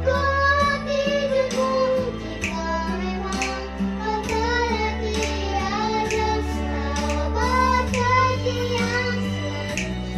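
A child singing a melody over a backing track with a bass line, during vocal practice while suffering from a cough and cold.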